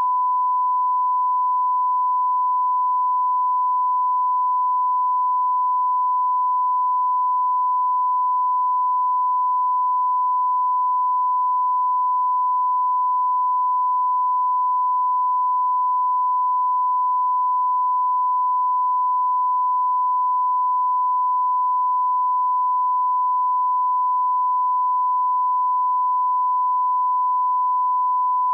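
Steady 1 kHz line-up test tone, a single pure tone at an unchanging level, played with broadcast colour bars as the reference for setting audio levels.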